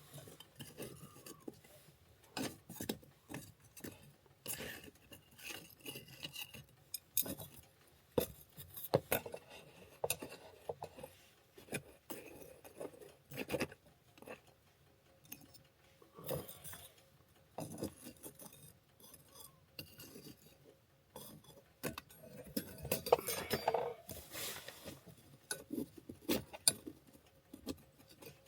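Irregular clinks and knocks of tableware and utensils being handled, with a busier stretch of clattering about two-thirds of the way through.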